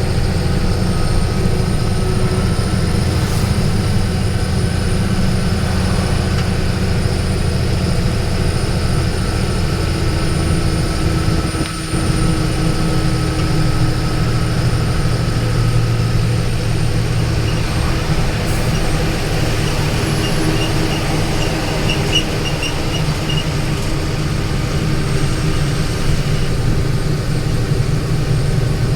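Steady low rumble of a vehicle travelling along a highway: engine drone and road noise.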